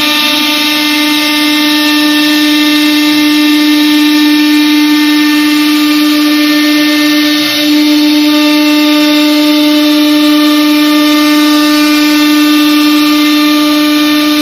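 Air-cooled CNC router spindle running with a steady, even whine while the bit routes a groove in MDF board, over a hiss of cutting. The whine dips briefly about seven and a half seconds in.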